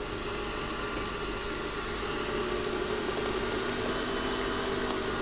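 Electric stand mixer running steadily at speed, its beater whipping a creamed batter with the eggs beaten in.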